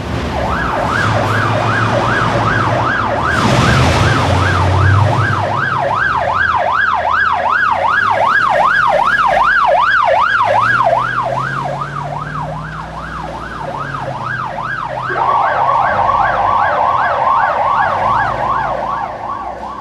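Fire engine siren sweeping up and down about twice a second, switching to a faster warble about fifteen seconds in, over the truck's diesel engine running as it pulls away. A short hiss about four seconds in.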